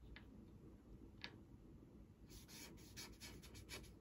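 A pen signing an autograph, faint: a couple of short scratches, then from about two seconds in a quick run of scratchy strokes as the signature is written.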